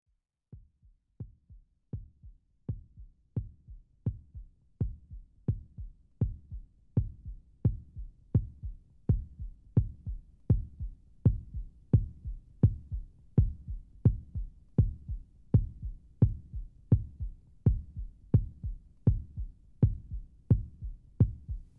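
A deep, heartbeat-like bass thump repeating steadily, about one and a half beats a second. It starts faint and irregular and grows louder over the first few seconds.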